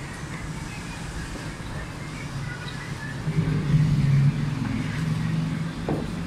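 Motor vehicle engine running close by with a steady low drone, louder for about a second starting three seconds in.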